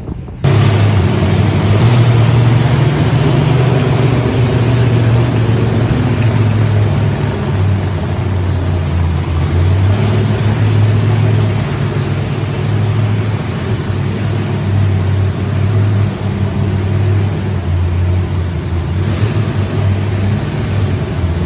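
A car engine running loudly, its low hum shifting up and down in pitch every few seconds as it is revved. It starts abruptly about half a second in.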